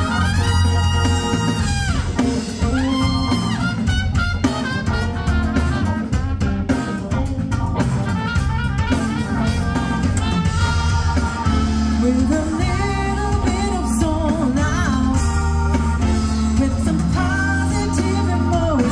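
Music with singing over a steady drum beat, with brass or organ.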